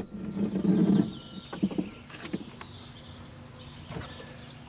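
A wheel-less mountain bike being handled and lifted. There is a knock at the start, a low scuffing in the first second, then a few light clanks, with small birds chirping in the background.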